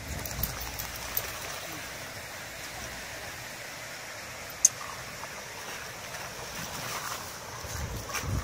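Water splashing and sloshing as a dog wades through shallow water with a stick, with one sharp click about four and a half seconds in.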